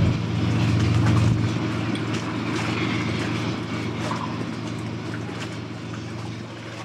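High-speed catamaran passenger ferry passing under way: a steady low engine drone over the rushing of its wake, gradually fading.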